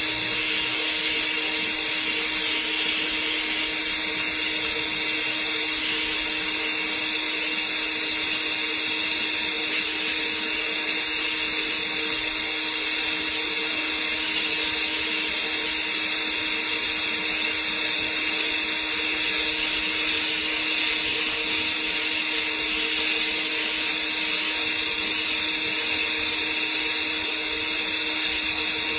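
Argon TIG welding arc on a pipe joint, burning with a steady hiss and a constant hum underneath, without a break.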